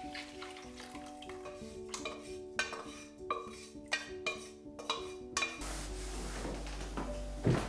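A utensil clinks against a dish about eight times, at irregular intervals, as in stirring or mixing, over soft, slow piano-like music. About two-thirds of the way in the background changes to a steady low hum, and near the end there is one loud knock.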